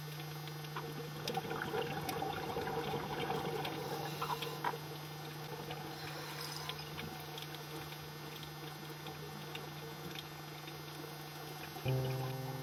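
Underwater ambience picked up by a camera in its housing: faint scattered crackling clicks over a steady low hum. Music with held tones comes in near the end.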